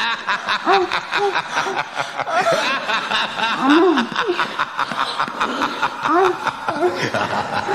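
People laughing hard in quick, repeated bursts of voiced laughter.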